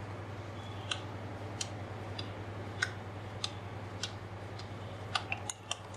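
Hands rolling soft wheat-flour dough into a ball between the palms, giving faint sticky clicks at a fairly even pace, roughly two every second, growing a little quicker near the end. A steady low hum sits underneath.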